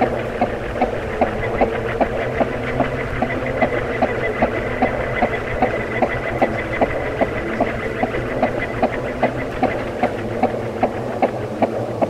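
Ceiling fan running: a steady hum of several low tones with a regular tick about two and a half times a second, and a faint high whine for a few seconds in the middle.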